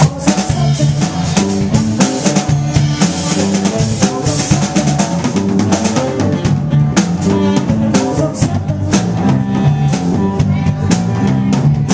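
Live band playing an instrumental passage: a drum kit keeps a steady beat of kick and snare under electric guitar.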